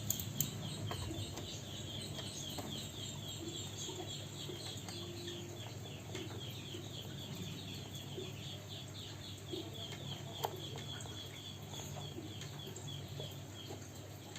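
Birds chirping in a rapid, continuous series of short high notes, several a second, over a low background hum, with a few faint clicks.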